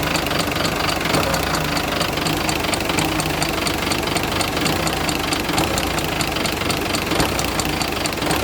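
Six-cylinder engine idling with a rapid, regular ticking from the valvetrain, the sign of a worn rocker arm roller.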